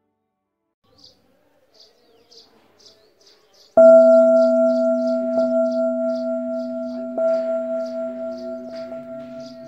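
A bell struck once about four seconds in, its deep tone ringing on and slowly fading, with two lighter taps partway through. Short high chirps repeat about twice a second throughout.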